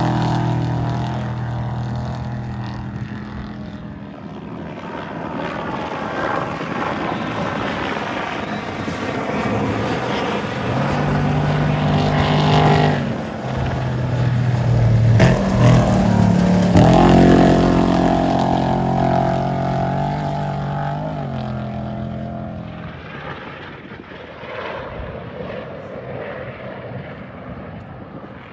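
Off-road race trucks' engines running hard as they go by. The engine note steps up and down in pitch and swells twice, loudest midway, then fades away near the end.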